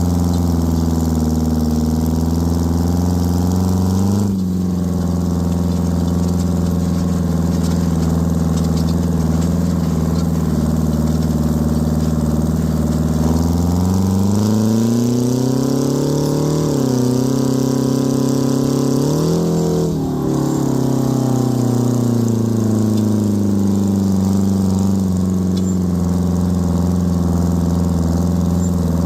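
Detroit Diesel 4-53 four-cylinder two-stroke diesel in an Oliver tractor, running hard under load while pulling a disc. About halfway through, the engine speed climbs and wavers twice, then eases back down over several seconds to its steady note.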